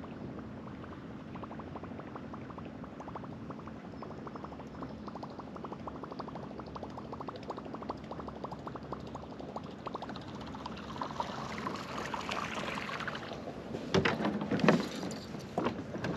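Fishing reel being cranked during a retrieve: a long, steady run of rapid soft clicks. About fourteen seconds in, a few loud knocks and rustles on the kayak.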